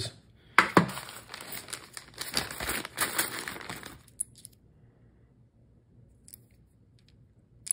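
A sharp plastic click, then about three seconds of a clear plastic bag crinkling and rustling as small plastic game pieces are handled, followed by a few faint light clicks.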